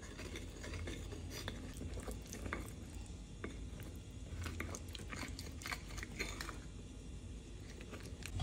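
A metal fork stirring and mashing a thick, wet corn-and-flour batter in a glass dish, with faint, irregular clicks and scrapes of the fork against the glass.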